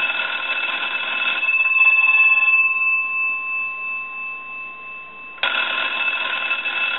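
The original twin bells of a Western Electric wooden wall crank telephone, rung by a line analyzer sending a ring signal as for an incoming call. A burst of rapid ringing stops about a second and a half in, and after a pause of about four seconds a second burst starts near the end, in standard two-on, four-off ring cadence. It shows that the original bells still ring on an incoming call through the converted circuit.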